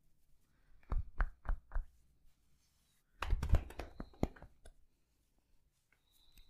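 Massage tapping: four sharp, evenly spaced taps about a second in, then a quicker, louder flurry of taps and knocks about three seconds in.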